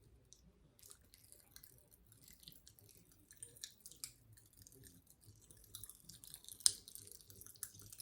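Popping candy crackling in the mouth: a dense, faint patter of tiny pops starting about a second in, with one sharper click near the end.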